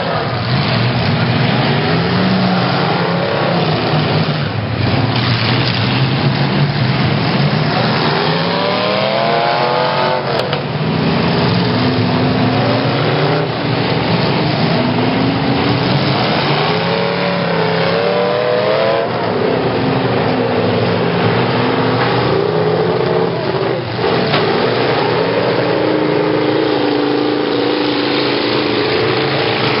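Several demolition derby cars' engines revving hard, their pitch climbing and dropping again and again as they accelerate and back off, over a loud steady din. A few sharp knocks of cars crashing into each other break through, one about four seconds in, one near ten seconds and one near twenty-four seconds.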